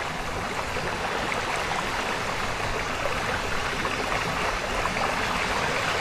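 Steady rushing of water from a tall waterfall plunging into a pool.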